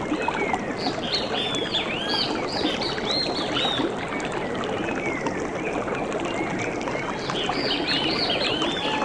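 Birds chirping in many short, arched notes over a steady rush of running water. The chirping is dense early, thins out around the middle and picks up again near the end.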